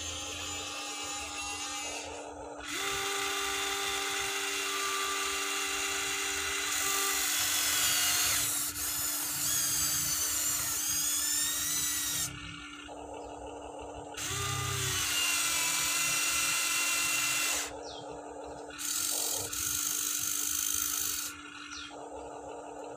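Huina 1593 remote-control excavator's electric motors whining as it moves its boom and arm and turns, running in several spurts that start and stop sharply, the whine rising and falling in pitch in the middle stretch.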